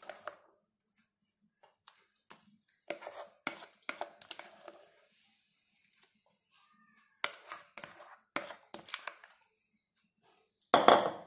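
A silicone spatula scraping a thick whipped mixture from a glass bowl into a steel tin, in short irregular scrapes and taps against the rims, with a louder clatter near the end.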